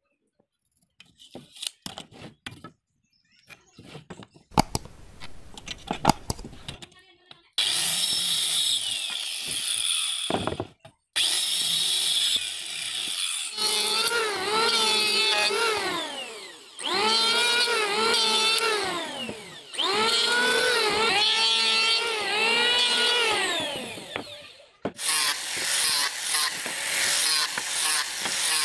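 A few light clicks and knocks of handling wood, then an electric hand planer starts and cuts a wooden strip in several passes. Its motor whine sags under each cut and climbs back between passes.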